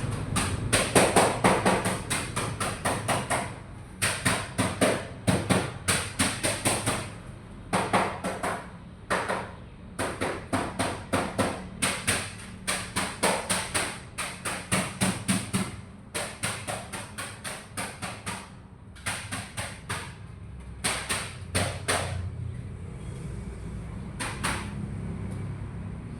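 Runs of sharp taps or knocks, about two to three a second, broken by short pauses and thinning out near the end.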